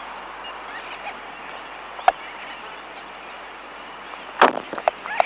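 Laysan albatross bill-clacking close by: one sharp clack about two seconds in, then a quick rattle of several clacks near the end. A steady din of distant sooty terns sits underneath.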